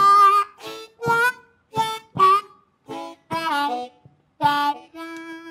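Blues harmonica played solo in short, bending blasts, about eight of them, then a long held note near the end.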